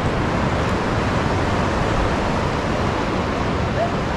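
Steady rush of wind and breaking surf, with wind rumbling on the microphone.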